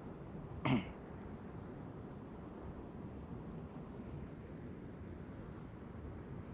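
A person clearing their throat once with a short cough about a second in, over a steady rushing background noise, with a few faint high chirps.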